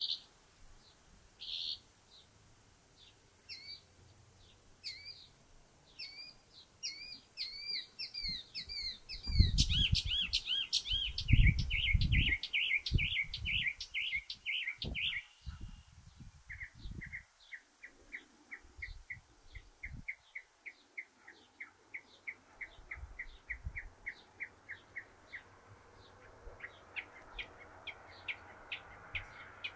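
Northern mockingbird singing: a string of varied phrases, each note type repeated several times, from sparse hooked notes to a dense run of arching notes and then a long, fast series of short notes. Bursts of low rumble come about a third of the way in.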